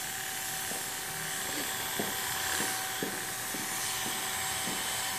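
Corded electric hair clipper running with a steady buzz as it is worked along the lower hairline to taper and outline it.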